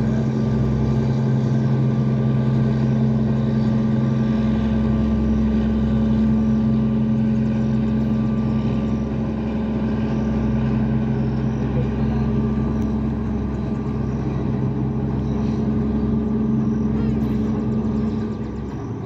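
An engine running steadily at constant speed, an even low hum that does not change pitch, easing off slightly near the end.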